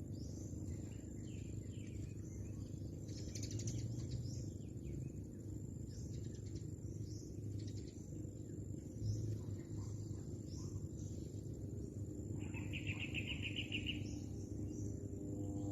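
Birds chirping outdoors in short high calls, with a rapid trill about twelve and a half seconds in, over steady low background noise.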